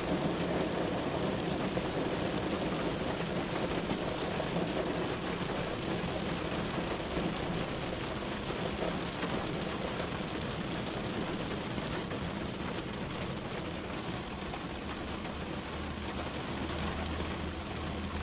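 Heavy rain falling steadily on a parked car's roof and windows, heard from inside the car.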